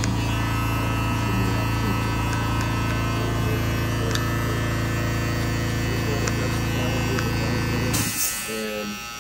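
Electric hair clippers running with a steady low hum, cutting off abruptly about eight seconds in.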